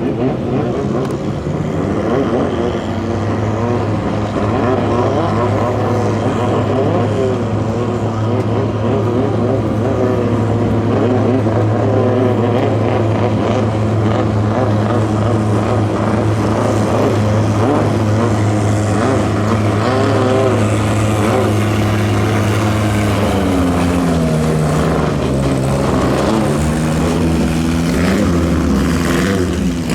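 Racing boat engine running hard at a steady high pitch, which drops and then climbs again about three-quarters of the way through.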